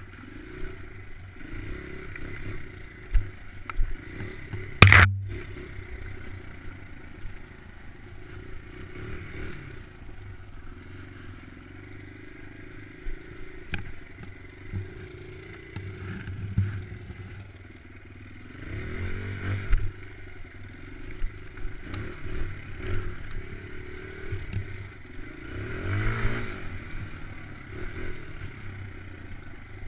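Dirt bike engine running at low trail speed, revving up briefly twice in the second half, with scraping and clatter from the ride over leaves and sticks. A single sharp clack about five seconds in is the loudest sound.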